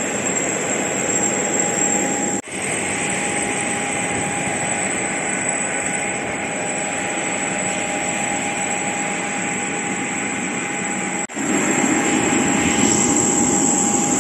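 Jet aircraft turbines running on an airport apron: a loud steady rush with a constant high whine. It breaks off briefly twice, about two and a half seconds in and again about eleven seconds in, and is a little louder after the second break.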